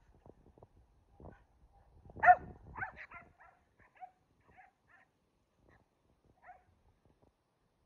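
Dog barking in play: one loud bark about two seconds in, quickly followed by several shorter barks, then a few faint, scattered yips.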